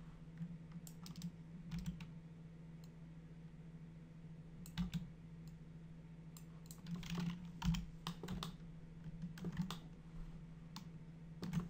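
Scattered clicks and taps of a computer keyboard and mouse, in small clusters, over a steady low hum.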